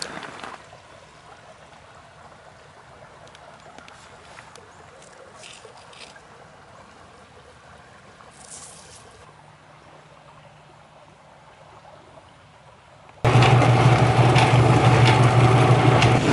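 Quiet hiss with a few light clicks. For the last three seconds a rotary rock tumbler runs loud, with a steady motor hum under the dense rattle of stones churning in its barrel.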